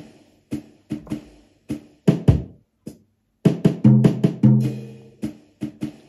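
Boss Dr. Rhythm DR-3 drum machine playing a saved user rhythm pattern: spaced drum hits, then about three and a half seconds in a denser passage with sustained low pitched notes under the drums.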